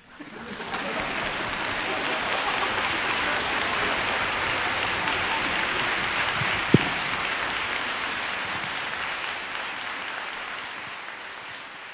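Audience applauding in a concert hall, swelling in over the first second, holding steady and slowly thinning toward the end. A single short thump about seven seconds in.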